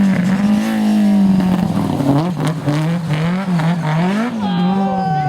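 BMW E30 rally car engine running hard, its pitch rising and falling again and again as the throttle is worked through a drift. A steady high tyre squeal joins about four seconds in.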